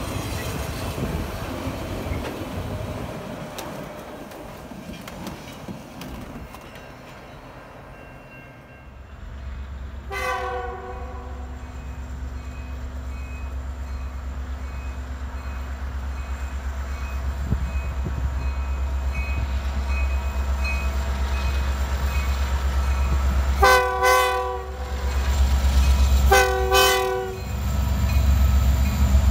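Diesel locomotive approaching, its low engine rumble building steadily louder after an earlier rumble dies away. The multi-tone horn sounds once briefly about ten seconds in, then twice with longer blasts near the end.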